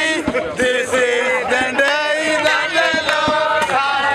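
A group of men singing a chant with held notes, with sharp percussive hits from clapping and a drum.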